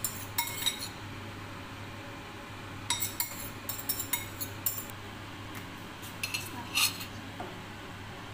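Utensil clinking and scraping against ceramic plates and a bowl as food is served out: a few clinks near the start, a quick run of clinks a few seconds in, and a last louder clink near the end.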